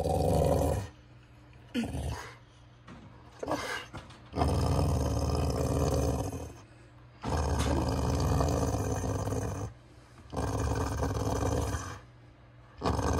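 Pit bull making his Chewbacca-like growl with a toy in his mouth: a few short growls, then a series of long, low, drawn-out growls of about two seconds each with short pauses between. It is his play sound, a 'let's get going' invitation.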